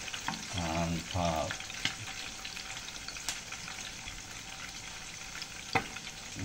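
Fish frying in hot oil in a pan: a steady sizzle with scattered small pops, and one sharper click near the end.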